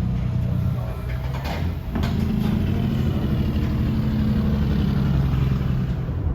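Car engine running while driving, with a short dip in level about two seconds in, then a steady engine note that eases slightly lower near the end.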